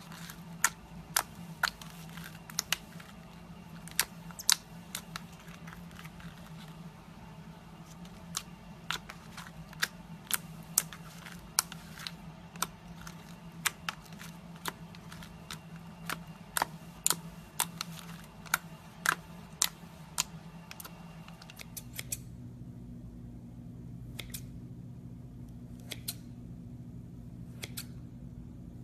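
Slime being worked by hand, giving irregular sharp clicks and pops, one to three a second, over a low steady hum. The background hum changes about 22 seconds in, and the clicks grow sparser after that.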